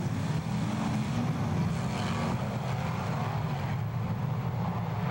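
Dirt modified race cars' V8 engines running together as a pack circles the track, a steady low drone.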